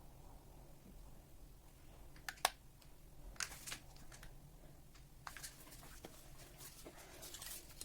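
Faint scattered clicks and taps of small objects being handled on a work surface, a few at first and coming more often in the second half.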